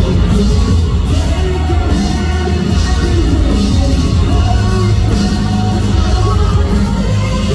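Loud live pop-rock concert music: a full band with heavy bass and a sung vocal line.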